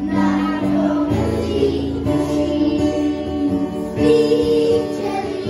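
A group of young children singing together in unison, holding each note for about a second before stepping to the next.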